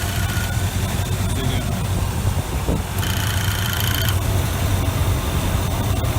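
Chevrolet 454 big-block V8 idling steadily. About three seconds in, a high, rapidly pulsing electronic beep sounds for roughly a second.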